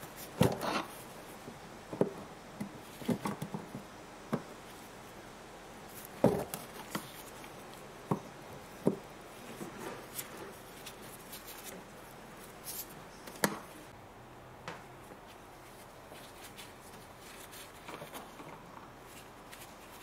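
Scattered clicks, knocks and scrapes of a screwdriver working plastic screws out of a car's plastic wheel-arch liner. The loudest knocks come about half a second, six and thirteen seconds in, and they thin out over the last few seconds.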